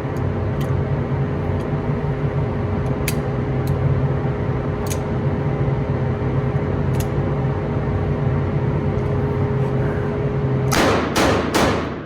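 Steady mechanical hum with a constant tone, with several faint sharp cracks of distant gunshots scattered through it. Near the end come three loud bursts in quick succession.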